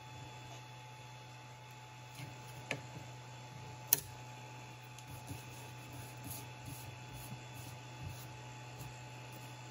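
A 3D-printed plastic part being pried off a 3D printer's build plate with a blade: small scrapes and ticks, and one sharp click about four seconds in as the part comes free, followed by light handling on the bed. A steady low hum runs underneath.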